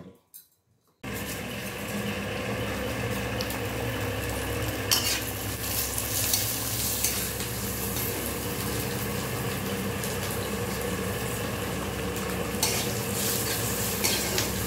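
Food frying in hot oil in a large steel kadai, a steady sizzle that starts abruptly about a second in, with a steel ladle clinking and scraping against the pan now and then.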